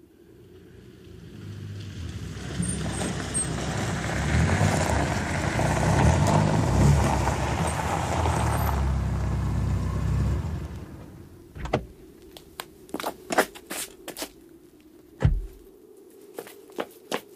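Car sound effect: a car drives up, its rumble building for several seconds, then its engine stops. A run of sharp clicks and thumps follows.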